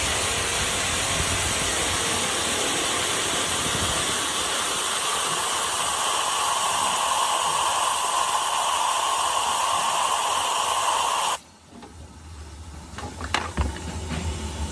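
Circular cold saw blade cutting through a thick-walled steel tube: a loud, steady hissing grind that grows stronger toward the end of the cut, then drops off suddenly about eleven seconds in as the blade breaks through. A quieter run with a few sharp clinks follows.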